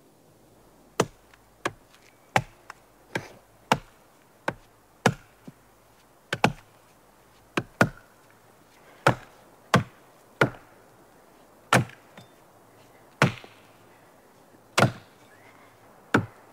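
Steady chopping blows into pine wood, hacking at the trunk for its bark: about twenty sharp strikes, close together at first and more spaced out toward the end.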